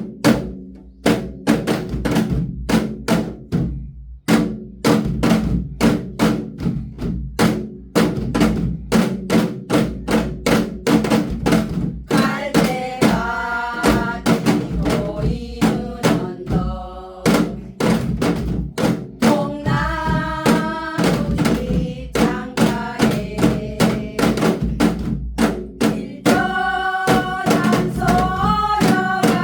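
Janggu (Korean hourglass drum) struck in a steady, even rhythm, played along to a recorded song with a low bass; a melody joins about twelve seconds in.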